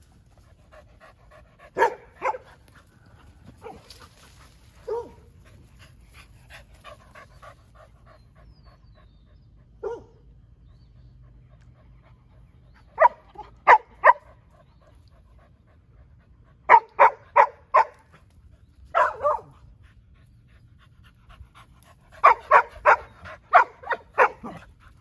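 Dogs barking: a few scattered single barks, then about halfway through, quick volleys of three or four barks, ending in a run of about six.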